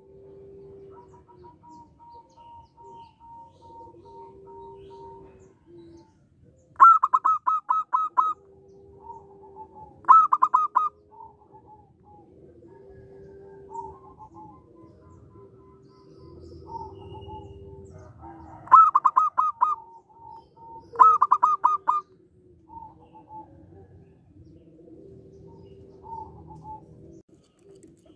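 Zebra dove (perkutut) singing: four loud bursts of rapid staccato cooing notes, each burst about a second long, coming in two pairs. Between them run fainter, longer held cooing notes from other birds.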